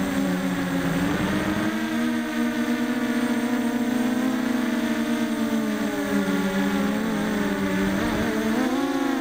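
Quadcopter's four Emax 2204 2300kv brushless motors spinning HQ6045 propellers: a steady pitched whine heard from the onboard camera, dipping briefly about a second and a half in and rising in pitch near the end as the throttle changes.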